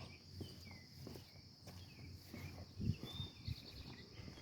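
Insects droning steadily, with short bird chirps scattered through and a few footsteps about three seconds in.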